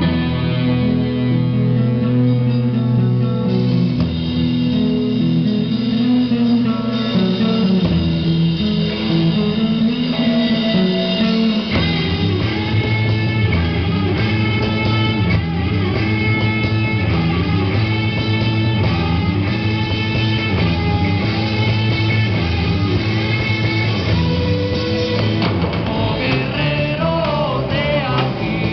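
Live rock band playing through amplifiers: electric guitar, bass guitar and drum kit. The band moves into a new section about twelve seconds in.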